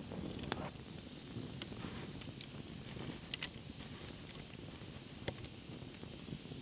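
Birch-log campfire burning in a stone fire pit, crackling with a few scattered sharp pops over a low steady rumble.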